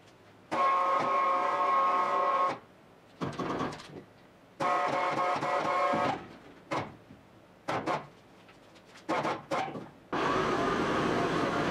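Electric hoist motor running in two steady runs of about two seconds each, lifting the bare car body shell, with short knocks and clanks between them. About ten seconds in, a louder steady noise starts and carries on.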